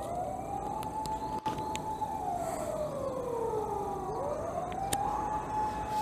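A single wailing, siren-like tone: it sweeps up and holds, slides slowly down over about two seconds, then sweeps quickly back up about four seconds in and holds again.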